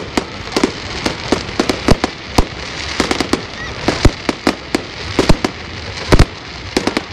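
Fireworks display: a rapid, irregular run of sharp bangs from bursting aerial shells, several a second, over continuous crackling.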